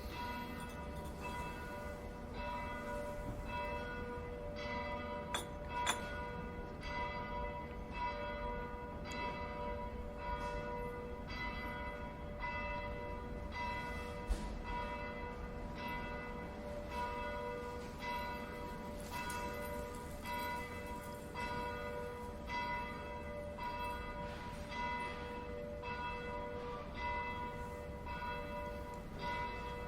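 Bells ringing in a steady, even run of strokes, about one every three-quarters of a second, each stroke ringing on into the next.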